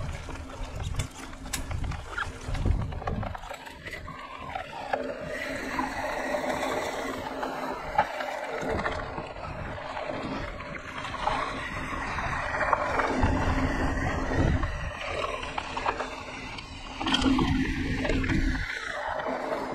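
Wind buffeting a rider-mounted camera's microphone in uneven gusts, over the rolling noise of a mountain bike on a dirt trail.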